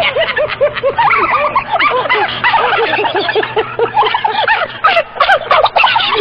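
Small dog yipping and yelping in a rapid, loud string of short high calls, several overlapping.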